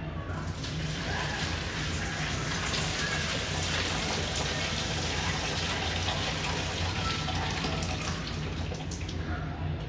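Water from a pot of boiled potatoes being poured off into a sink: a steady pouring and splashing that begins just after the start and tapers off near the end.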